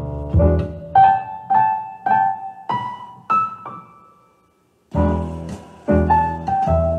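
Piano music played back from a cassette on a freshly re-belted Technics RS-TR265 deck through hi-fi speakers, with no audible warble in the pitch, a sign the new belts are holding the tape speed steady. The music drops out briefly just past halfway, then comes back in with low notes.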